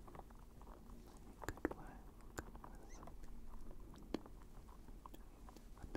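Soft, unintelligible close-microphone whispering with wet mouth clicks, and a few sharp clicks about one and a half, two and a half and four seconds in.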